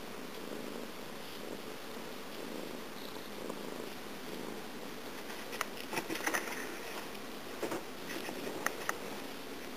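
Domestic cat purring steadily while being stroked. Brief scratchy rustles and clicks come in over the purring in the second half.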